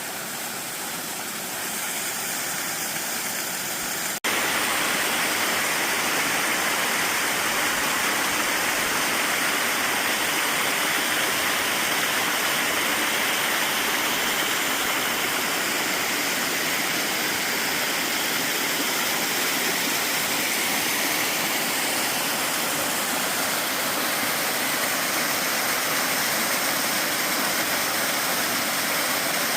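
Waterfall rushing steadily. About four seconds in there is a brief click and dip, after which the rushing is a little louder.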